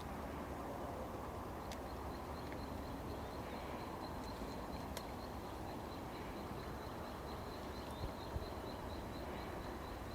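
Outdoor canal-side ambience: a steady background hiss with a fast, even series of high chirps, several a second, starting about two seconds in. A couple of soft knocks come near the end.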